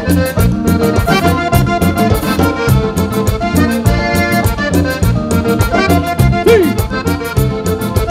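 A live band's instrumental introduction: an accordion plays the melody over bass notes and a steady percussion beat.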